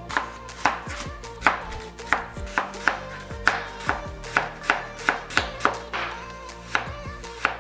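Chef's knife slicing through an apple and knocking on a plastic cutting board, about two cuts a second, over background music.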